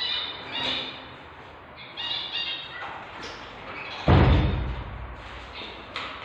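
Newborn kittens mewing in short, high, squeaky cries, several times. A loud thump about four seconds in.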